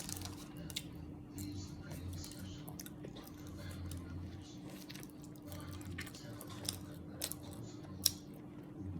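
A person chewing a soft, cheesy toasted tuna sandwich: quiet, wet mouth sounds, with a few sharp clicks near the end, over a faint steady hum.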